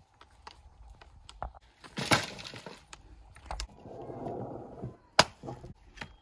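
A bundle of dry firewood sticks dropped to the ground with a loud crackling clatter about two seconds in, then the sticks rustling as they are handled, and a single sharp axe knock on wood a little after five seconds.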